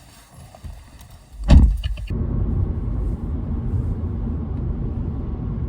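A brief loud knock about a second and a half in, then a steady low rumble of a car heard from inside the cabin, starting abruptly about two seconds in.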